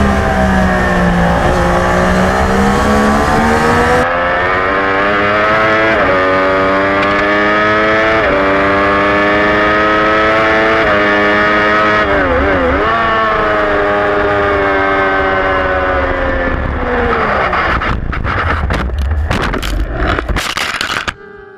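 Onboard sound of a Triumph Daytona 675R's three-cylinder engine revving hard, climbing up through several gear changes, then its note falling away as the bike slows. In the last few seconds the bike crashes, with a run of knocks and scraping as it goes off into the grass, before the sound drops away abruptly near the end.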